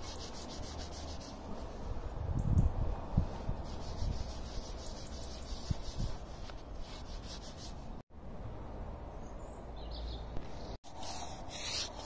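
A cloth rag rubbing and wiping over a steel plate, a steady scuffing sound. It cuts out sharply twice in the second half.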